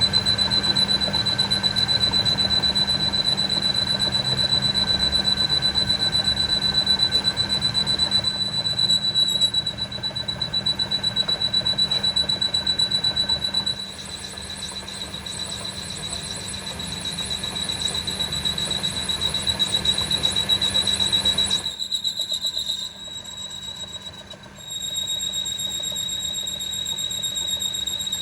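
A steady, high-pitched whine held on one note over rough, rattling mechanical noise. It eases slightly about halfway through, the noise underneath drops away about three-quarters of the way in, and after a brief dip the whine carries on.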